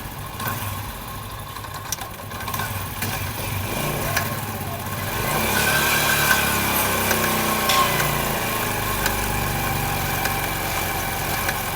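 Honda CD 70 motorcycle running, its revs rising about five seconds in, with a 'tak tak' ticking from the rear drive chain. The chain is loose and running dry; the noise is usually a worn chain lock or front sprocket and a sign that the chain is close to breaking.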